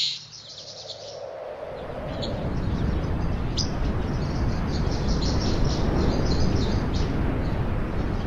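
Birds chirping: many quick, high chirps over a low rumbling noise that swells over the first few seconds and then holds steady.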